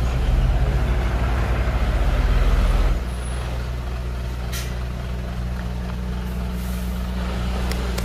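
Heavy diesel engine of earthmoving machinery, working hard and pulsing for about three seconds, then dropping back to a steady lower idle. A short hiss comes about four and a half seconds in.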